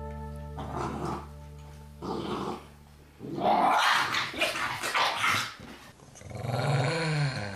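A puppy growling and snapping while guarding its food bowl, a warning snap that shows its tolerance threshold has been reached. Near the end another dog growls.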